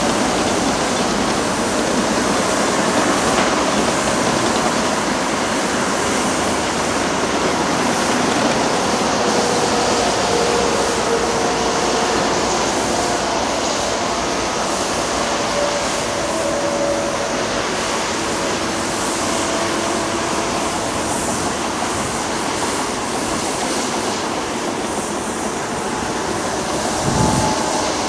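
Steady roar of motorway traffic, the tyres and engines of passing cars and lorries, with faint hums drifting in pitch and a louder low rumble near the end.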